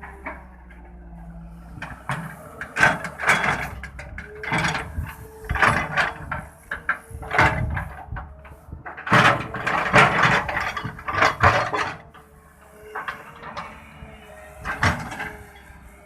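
Samsung SE170 W3 excavator at work: its engine runs under a run of irregular loud clanks and scrapes from the bucket and arm.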